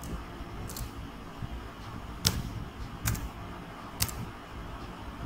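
Computer keyboard keystrokes, about four single key presses spaced roughly a second apart: slow, one-finger-style typing over a low steady room hum.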